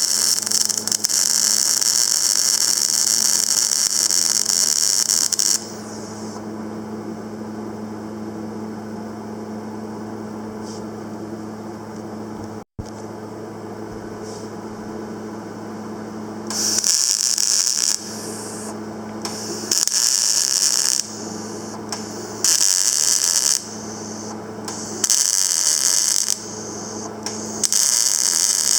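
Panasonic YD-350GB2 semi-automatic welder: the arc crackles and hisses steadily for about five seconds, then stops and leaves the machine's steady electrical hum. Over the last dozen seconds the arc strikes again in five short welding bursts of about a second each.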